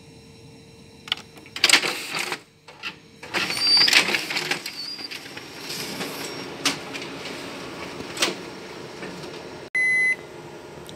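Ricoh Aficio MP 5002 photocopier running a one-sided to two-sided copy job, its paper-feed and duplex mechanism making uneven noisy passages with clicks. Near the end it gives a short electronic beep, its signal that the copy job is finished.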